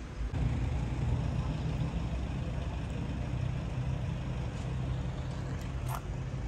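A motor vehicle's engine running steadily, a low rumble that comes up just after the start and holds. A short sharp click near the end.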